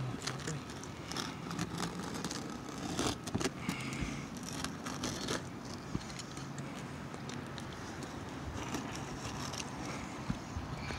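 Scattered light scrapes and clicks of hand tools being handled on a roof membrane, over a faint steady low hum.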